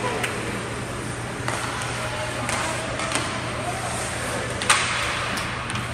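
Ice hockey arena sound during play: skates scraping on the ice and scattered sharp clacks of sticks and puck, with one louder crack about three-quarters of the way through. A steady low hum and faint spectator voices lie underneath.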